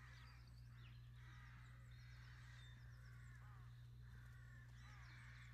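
Faint harsh bird calls, like caws, repeating one after another, with a few thin high chirps, over a steady low hum.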